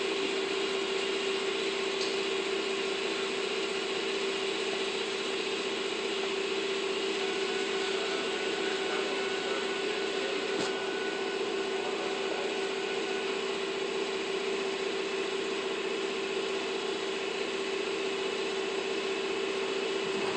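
A small electric motor running steadily at one constant speed: a steady hum over a hiss, with no change in pitch.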